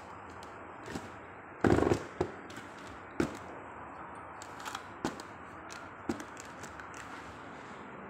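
Handling noise from a portable LED floodlight and its folding tubular carrying frame: a loud rattling clatter about two seconds in, then several single sharp knocks as the frame is swung round and set against the box.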